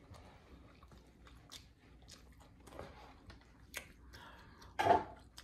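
Close-miked chewing of a mouthful of pizza: soft, faint mouth clicks and squishes. A short louder mouth sound comes near the end.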